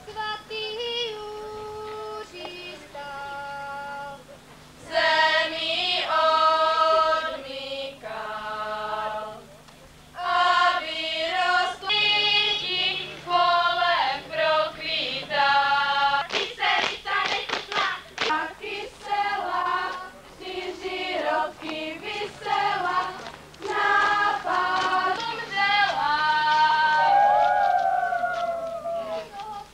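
A group of girls singing a Moravian folk song together in phrases, with a run of sharp percussive hits about halfway through.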